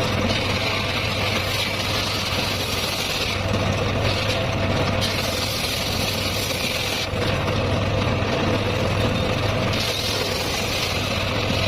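Circular saw running steadily with a constant hum, cutting teak and mahogany, with three stretches of louder, hissier cutting as the wood goes through the blade.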